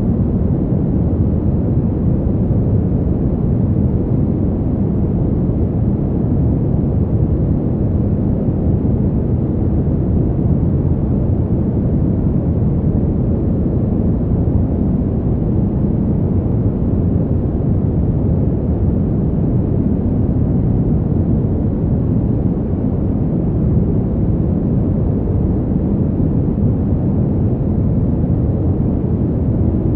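Fan heater running steadily: an even, deep whoosh of air with little treble, unchanging in pitch and level.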